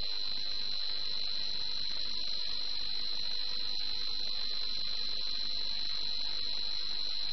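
A steady high-pitched tone holding one pitch without change, over a faint even hiss.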